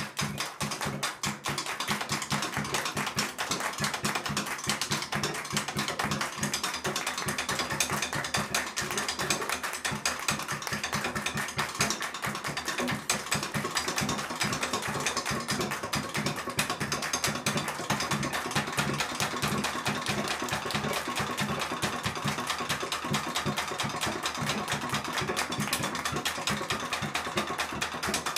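Live band of viola, guitar and drums playing a dense, busy passage full of rapid clicking and rattling, which runs on without a break.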